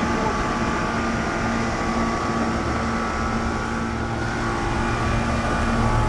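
1992 Rheem Classic X air conditioner condensing unit running steadily: compressor hum with the condenser fan's even rush of air.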